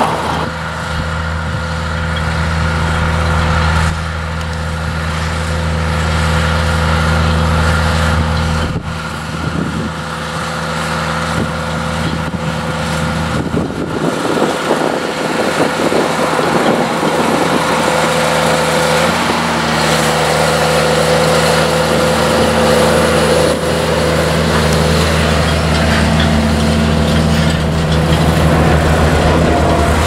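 JCB Fastrac 3230 tractor's diesel engine running steadily under load while drawing a 16 m set of Simba rolls across a field, its note shifting slightly partway through.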